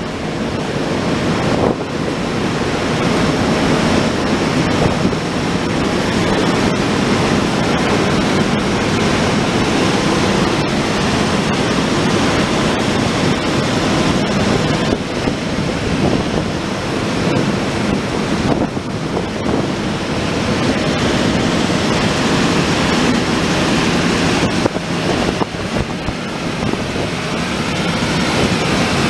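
Class 18E electric locomotive standing, its cooling blowers running with a steady, loud rushing noise.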